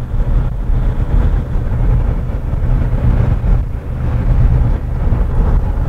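Cabin noise of a moving Volkswagen Jetta TDI: the four-cylinder turbodiesel pulling steadily, mixed with a deep, steady road rumble. The car is being driven to burn off soot in the diesel particulate filter.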